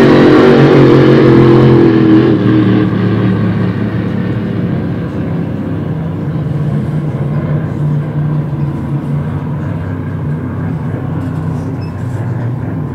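Grand Prix racing hydroplane engine running at speed as the boat passes; its loud note fades over the first two to three seconds into a steadier, quieter drone of racing boat engines.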